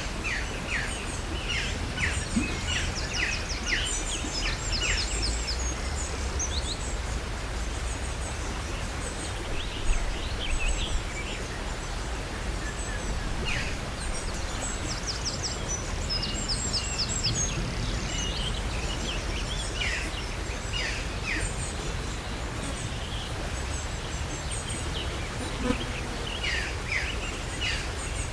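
Outdoor ambience of songbirds singing in phrases of quick, high chirps and trills, coming and going, over a steady low rumble.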